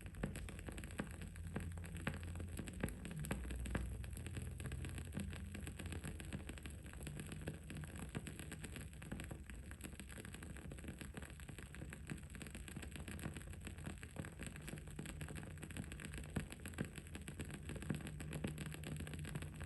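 Wood-wick candle burning with a continual, irregular fine crackle of small pops, over a steady low background hum.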